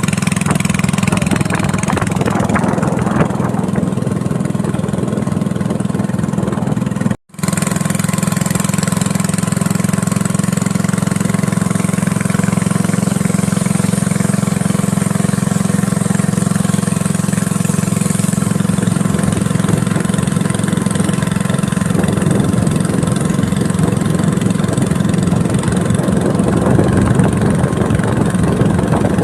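A small engine running steadily at a constant pitch, with a momentary break about seven seconds in.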